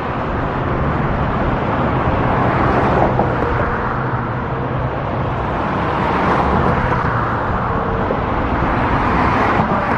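Steady road traffic, vehicles passing in a continuous rumble that swells and eases several times.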